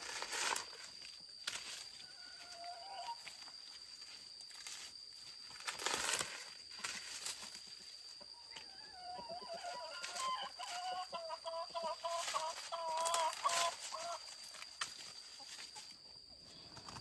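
Chickens clucking, a short call early on and a longer run of clucks from about nine to fourteen seconds in, with scattered knocks and rustles.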